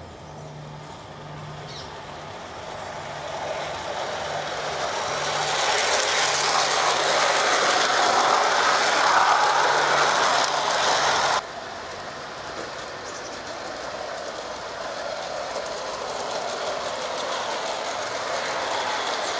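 Gauge 1 model goods train running on garden track, its wheels running on the rails, growing louder as the wagons pass close by. About eleven seconds in the sound drops suddenly to a quieter, steady run of the train further off.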